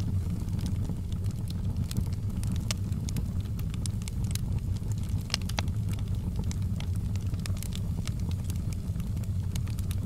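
Wood logs burning in a fireplace: the flames make a steady low rumble, and frequent sharp crackles and pops come at irregular moments throughout.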